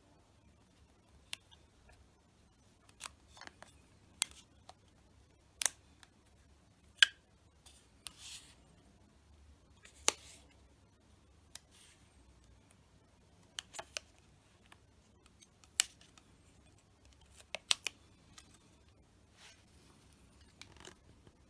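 Vinyl wrap film being stretched and pressed by hand onto a tennis racket frame: scattered sharp clicks and a few brief crinkles, about a dozen at irregular intervals.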